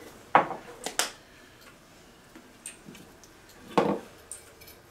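Large kitchen knife cutting celery on a wooden cutting board: a few sharp knocks of the blade on the board, three in the first second and another near the end.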